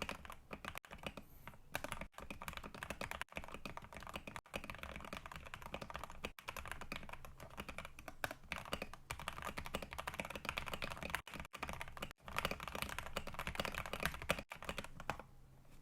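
Custom Tester68 mechanical keyboard being typed on fast: a dense, continuous run of key clacks that stops about a second before the end.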